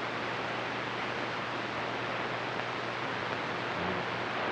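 CB radio receiver static: a steady hiss with a faint low hum, heard between transmissions on an open channel.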